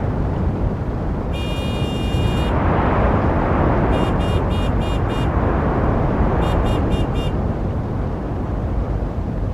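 Steady rumble of passing road traffic. A vehicle horn sounds once for about a second, then gives two runs of about four quick toots a couple of seconds apart.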